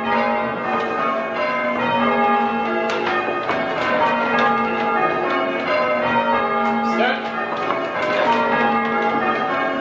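A ring of six church bells, in A-flat with a tenor of about 9¾ hundredweight, being rung in changes: the bells strike one after another in a steady round, their tones overlapping without a break.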